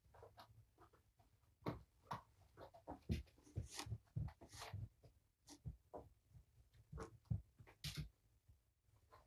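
Kittens scampering and playing on a rug: faint, irregular soft taps, scratches and scuffs of paws and toys.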